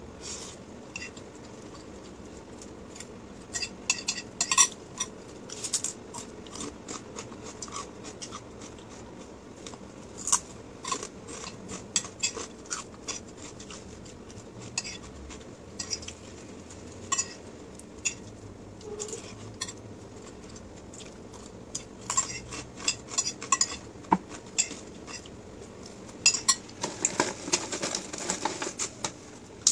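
Metal fork clinking and scraping against a plate while eating, in scattered clusters of sharp clicks, busiest near the end.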